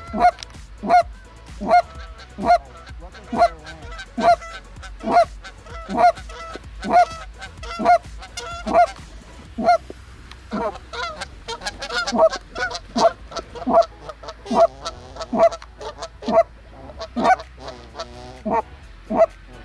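Canada geese honking, short calls repeating about once a second, then coming quicker and overlapping from about halfway through.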